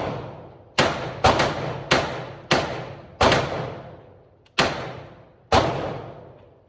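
Gunshots fired one at a time at a shooting range: seven shots at an uneven pace, roughly half a second to a second and a half apart, each with a long echoing decay.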